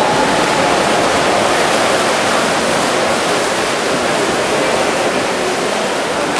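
Steady, loud wash of splashing water from water polo players sprinting for the ball at the swim-off, starting abruptly.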